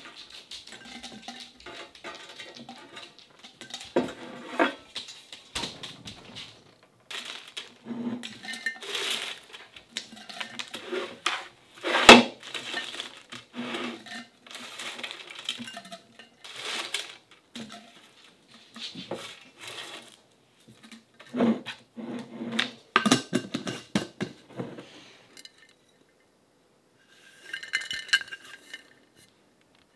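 Brittle dried slices being dropped by hand into a large glass jar from a metal tray: irregular crisp crackling and clinks against the glass and tray, loudest about twelve seconds in. Near the end there is a short squeaky scrape.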